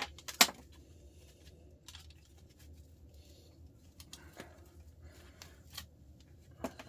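Small parts of a dismantled truck starter motor being handled and sorted: two sharp clicks at the start, then a few faint scattered clicks and light taps over a steady low hum.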